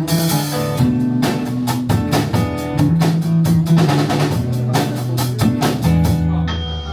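Live rock band playing an instrumental passage: drum kit, guitars and bass, with a crash cymbal at the start.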